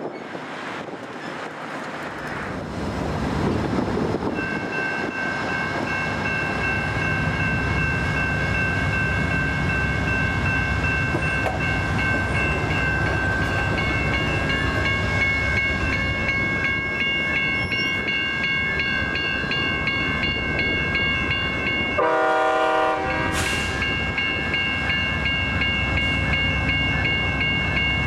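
Railway crossing bells ringing steadily over the running diesel engine of an approaching GE P42DC passenger locomotive. About two-thirds of the way through, its Nathan K5LA multi-chime horn sounds one short blast of about a second.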